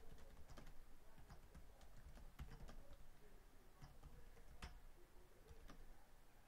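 Faint, irregular keystrokes of a computer keyboard being typed on, with one louder click about two-thirds of the way through.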